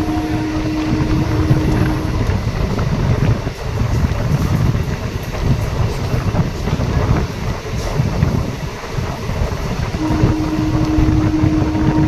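Passenger train running at speed, heard from an open coach door: a steady heavy rumble of wheels on rails with wind rushing past. A long steady tone sounds for about two seconds at the start and again from about ten seconds in.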